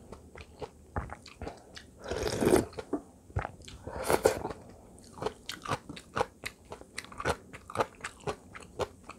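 Close-miked eating sounds: loud sips of doenjang soup from a spoon, about two and four seconds in, amid quick mouth clicks and chewing of radish-kimchi fried rice.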